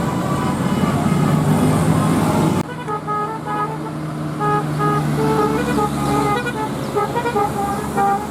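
A bus engine running close by; about two and a half seconds in the sound cuts abruptly to a telolet basuri musical air horn playing a tune of short notes at changing pitches over the engine running.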